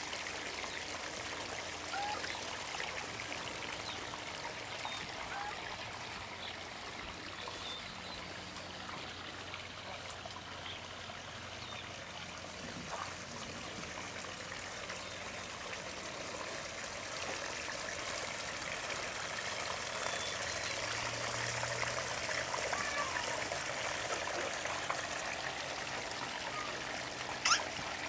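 Small garden pond waterfall running, a steady trickling splash of water, a little louder in the second half. A brief louder knock comes just before the end.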